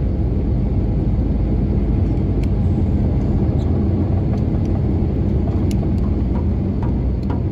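Cabin noise of an Airbus A320neo on its takeoff roll: a loud, steady rumble of engines and runway. Scattered light clicks come in from about two seconds in.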